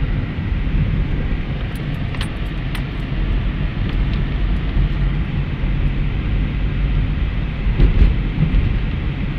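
Car driving, heard from inside the cabin: a steady low rumble of road and engine noise, with a few faint clicks about two seconds in and again near the end.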